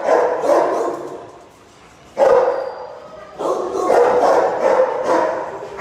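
Dogs barking in a shelter's kennels, in repeated bursts with a short lull just after a second in.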